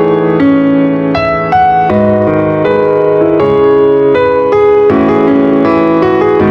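Background music: a piano melody with sustained notes.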